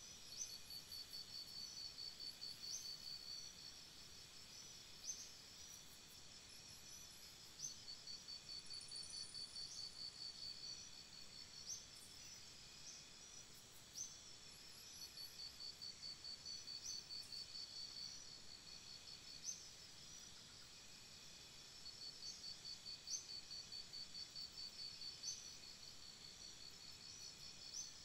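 Faint night insects, crickets, trilling in high pulsed runs of a second or two, with a short sharp chirp repeating every two to three seconds.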